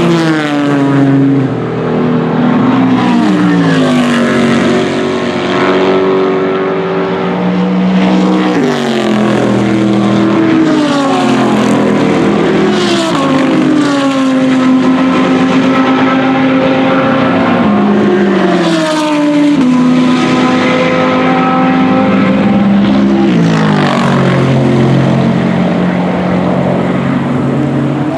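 Race car engines going past one after another, loud and continuous, their pitch falling in repeated glides and then holding steady.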